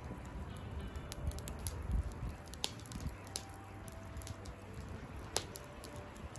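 Lump charcoal burning with open flames in a barbecue grill, giving off scattered sharp crackles and pops, the loudest about two and a half and five and a half seconds in. A low rumble of wind on the microphone runs underneath.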